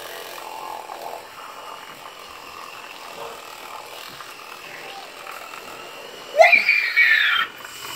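Child's battery-powered toothbrush buzzing faintly and steadily while brushing. About six seconds in comes a loud, high-pitched vocal squeal lasting about a second that cuts off sharply.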